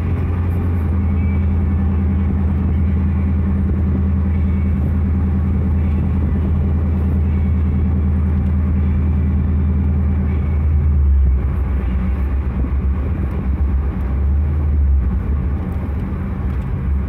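LS V8 engine of an LS-swapped Chevrolet S10 pickup, heard from inside the cab while the truck drives along a road, with a steady low drone. About eleven seconds in, the steady drone breaks up and turns uneven.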